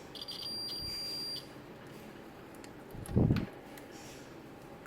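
Digital multimeter's continuity buzzer sounding one steady high beep of just over a second, signalling that the probed headphone wire is connected. A short low thump follows about three seconds in.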